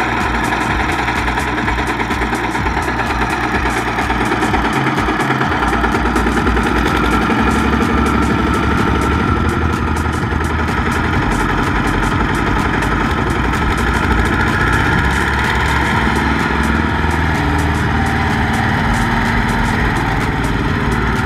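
Single-cylinder diesel engine of a two-wheel walking tractor chugging steadily under load as it drags a loaded trailer through sticky paddy mud, its low thudding growing heavier a few seconds in.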